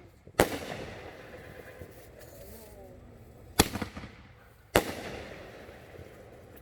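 Fireworks exploding: three sharp bangs, about half a second in, at about three and a half seconds, and a second later, each trailing off in a fading rumble.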